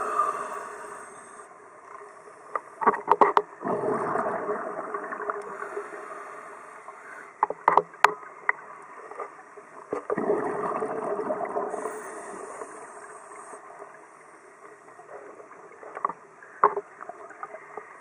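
Scuba diver breathing through a regulator underwater: a thin hiss on each inhale, then a rush of exhaled bubbles, about every six seconds. A few sharp clicks and knocks come in between.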